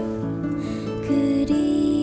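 Slow, gentle background music from a Korean song, with long held notes.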